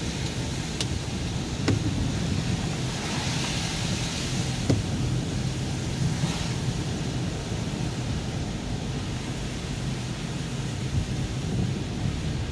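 Inside a car driving on a wet road in the rain: a steady rumble of tyres and engine with rain hiss on the windshield, and a few sharp ticks in the first five seconds.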